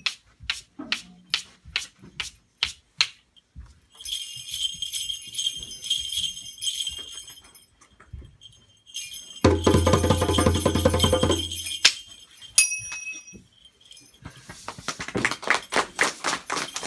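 Children playing a short piece on classroom percussion. A few separate taps, then small bells jingling for about four seconds, a loud low hand-drum passage for about two seconds, a brief bell ring, and a fast run of rattling taps near the end.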